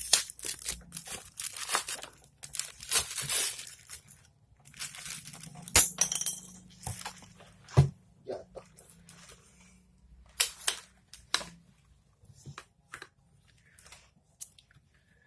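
Plastic packaging being unwrapped and torn open by hand: irregular crinkling and rustling with a few sharp knocks. It is dense for the first half and thins out to scattered rustles after about eight seconds.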